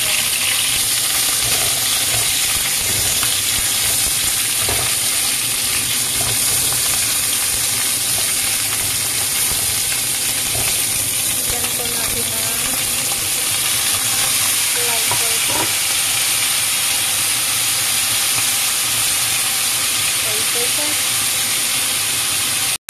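Pieces of pre-cooked wagyu oxtail sizzling in hot oil in a wok: a loud, steady frying hiss.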